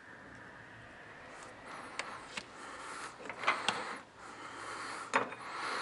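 Hands handling an alligator clip, test lead and handheld digital multimeter: light rustling with several small sharp clicks, a few of them close together in the second half.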